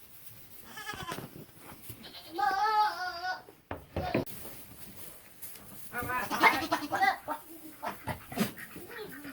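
Buckling goats bleating in wavering, human-like cries: a long quavering call about two seconds in, then a louder, rougher call about six seconds in, with a few short knocks between.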